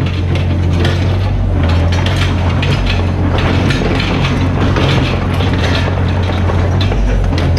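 Mini excavator's diesel engine running steadily under load, with irregular crunching and cracking as the machine works through broken material.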